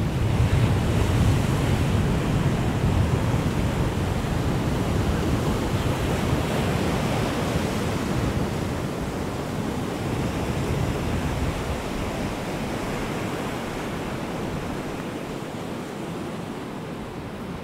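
Sea waves breaking and washing over a rocky shore ledge, with strong wind buffeting the microphone. The surf is loudest in the first few seconds and eases off toward the end.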